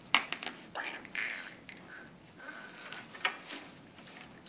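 A toddler eating macaroni by hand from a plastic container: a few sharp clicks and taps, the loudest just after the start and another about three seconds in, with soft mouth noises and faint murmurs between them.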